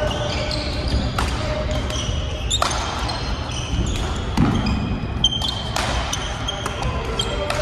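Badminton doubles rally: several sharp racket hits on the shuttlecock and short high squeaks of sneakers on the court floor, over the echoing din of play on neighbouring courts in a large hall.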